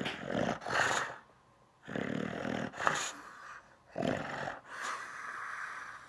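English bulldog grumbling and growling in a series of drawn-out, throaty noises with short pauses between them: an upset dog's sulking tantrum.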